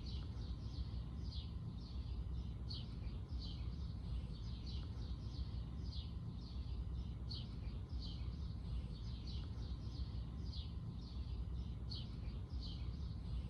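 Songbirds chirping outdoors: a steady string of short, high, downward-sliding chirps, about two a second, over a faint low rumble of background noise.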